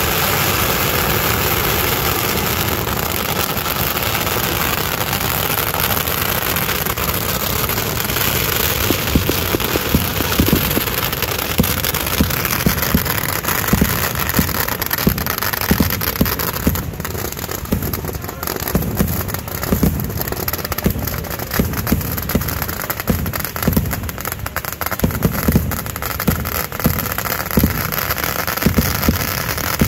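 Large wooden bonfire burning hard, a steady rushing of flames with dense crackling and popping, mixed with fireworks going off. The crackling and popping grow denser about nine seconds in.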